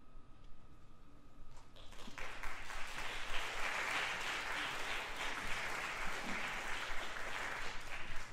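The last note of the concert band fades away, then audience applause starts about a second and a half in, builds quickly and carries on steadily, dropping off suddenly at the end.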